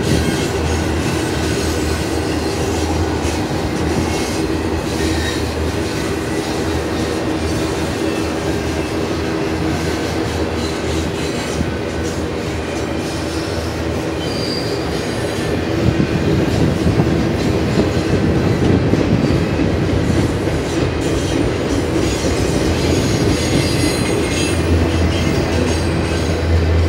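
Double-stack container well cars of a freight train rolling past at close range: a steady rumble and clatter of steel wheels on the rails, with brief faint wheel squeals now and then. It grows louder from about sixteen seconds in.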